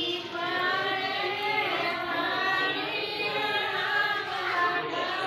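Several women singing together, their voices overlapping in a continuous song.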